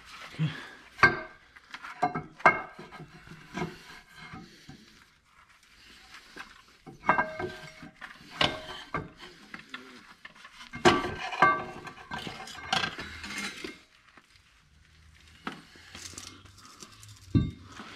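C5 Corvette's steel flywheel clanking and scraping against metal as it is worked off the crankshaft by hand and lowered out, in several bursts of metallic knocks that ring briefly. A heavier thump near the end.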